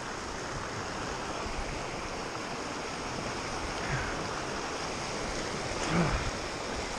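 Creek water rushing steadily through shallow rapids and riffles, with a brief louder noise about six seconds in.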